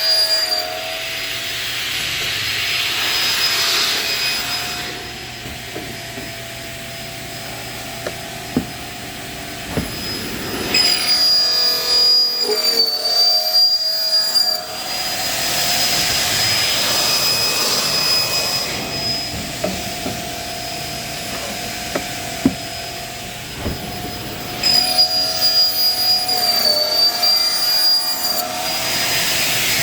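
Motor-driven saw of a converted PVC pipe cutting machine running with a steady high whine, cutting pipe over and over: about three times the whine wavers in pitch and a surge of hissing cutting noise rises and fades.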